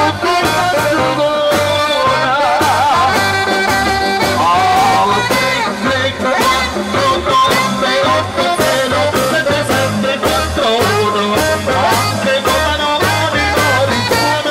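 Live band music with a steady beat: electric guitar, keyboard and horn over repeating bass notes, with a wavering melody line.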